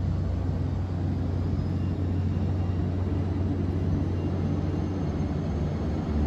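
A steady low rumble that stays even throughout, with no distinct events.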